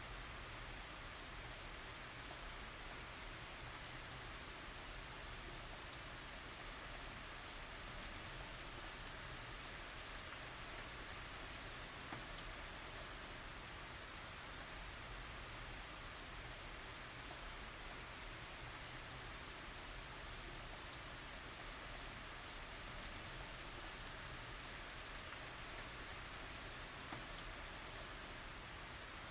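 Steady light tropical rain falling on surfaces, an even hiss with scattered small drop ticks and no thunder.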